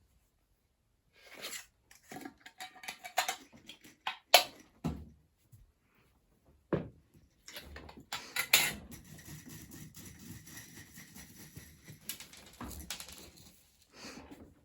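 Snack handling: irregular rustling, tapping and light clinking of packaging and dishes, with a longer stretch of rustling and crinkling in the second half.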